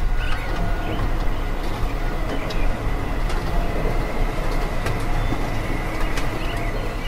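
Steady rumbling vehicle noise with scattered clicks and rattles, which breaks off suddenly at the end.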